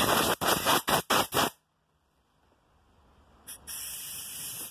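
Compressed-air blow gun blowing air over a clogged sanding disc on an angle grinder to clean it. It gives about five quick blasts in the first second and a half, then after a pause a short puff and a steady hiss of about a second that cuts off suddenly.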